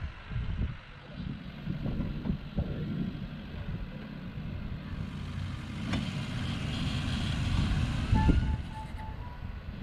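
Off-road vehicle running over rough ground: an uneven low rumble with irregular bumps and rattles.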